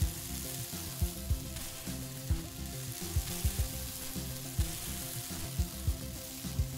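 Red kinetic sand being squeezed, crumbled and pressed by hand in a bowl: a steady crackly hiss. Background music with soft low beats runs underneath.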